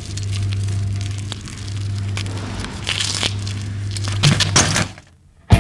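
Steady low hum of a camcorder's own sound track with scattered clicks and crackles from a flatland BMX bike being ridden on tarmac, a louder clatter about four seconds in.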